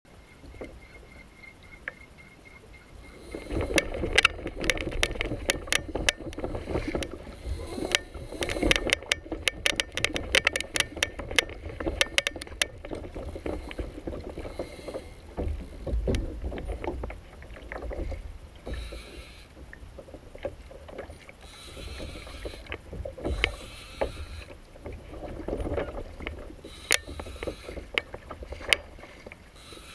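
Water lapping against a kayak hull with a low rumble underneath, and a dense run of rapid sharp clicks from about four seconds in until about thirteen seconds in.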